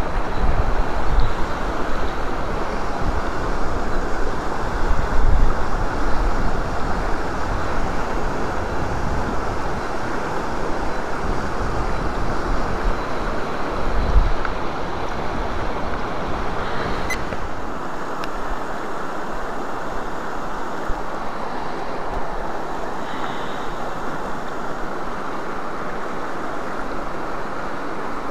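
A fast, high-running mountain trout stream rushing over rocks in a steady, loud flow. Low gusts of wind buffet the microphone until about two-thirds of the way through, then die away, and there is one faint click partway through.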